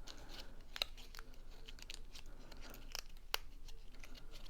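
Cardstock rustling and scraping as a paper piece is worked down into the slots of a pop-up card, with scattered sharp paper clicks, the loudest about three and a half seconds in.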